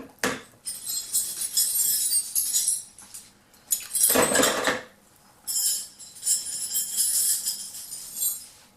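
Vintage steel drill bits clinking and clattering against one another as they are handled and put into a bucket of water and CLR, in two bouts of jingling clinks with a louder clatter about four seconds in.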